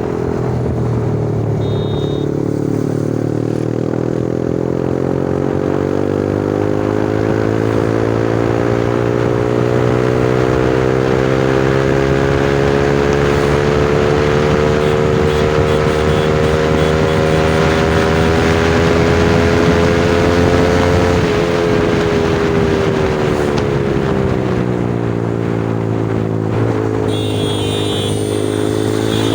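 Yamaha R15 V3's single-cylinder engine running through an aftermarket Akrapovic exhaust. Its note climbs slowly for about twenty seconds, drops fairly quickly about three quarters of the way through, then starts to climb again.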